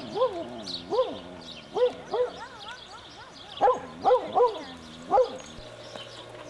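A dog whining and yipping: a series of about eight short, high-pitched cries that rise and fall, some wavering in pitch, with a pause near the end.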